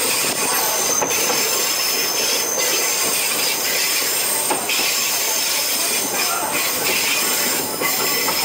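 Okuizumo Orochi tourist train running on curving track, with steady rolling noise and high wheel squeal on the curves. A few short clacks from the rails come through now and then.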